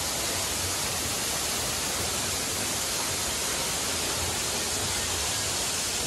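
Waterfall rushing: a steady, unbroken noise with no change in level.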